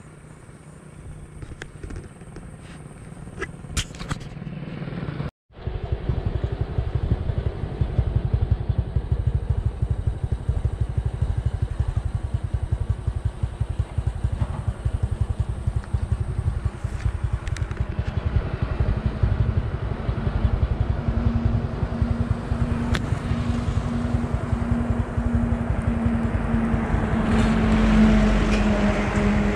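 Quiet background with a few sharp clicks, then after a sudden cut about five seconds in, a loud steady low rumble of a running motor vehicle, with a steady hum joining in partway through.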